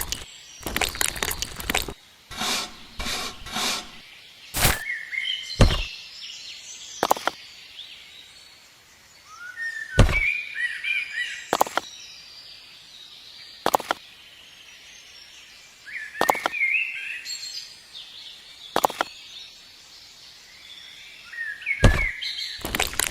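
Sharp knocks and taps of handling and working on hard material, about ten spread unevenly, with a few scraping rustles in the first few seconds. Birds chirp in the background between the knocks.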